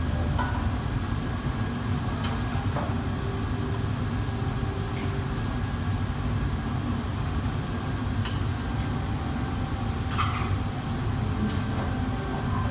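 Steady low rumble of a commercial wok range's burners and extraction hood, with several short metallic clanks of a cooking utensil against a steel wok.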